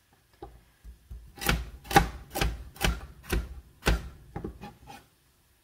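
Chef's knife chopping through a raw carrot onto a plastic cutting board: six firm chops about two a second, then a few lighter, quicker cuts near the end.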